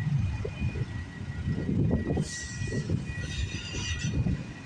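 Freight train of auto rack cars rolling past, its wheels thumping and clattering over the rails in an uneven rhythm under a steady low rumble, with a faint high squeal running underneath.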